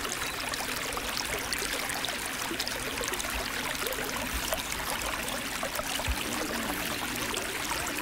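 Flowing stream water: a steady, even rushing and trickling hiss.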